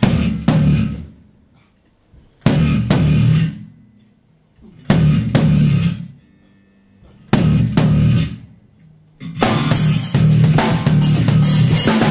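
Rock band with drum kit and electric bass playing four loud unison stop-time hits about two and a half seconds apart. Each hit is a pair of strikes that rings out and fades. About nine seconds in, the full band kicks into a steady driving groove with fast drumming.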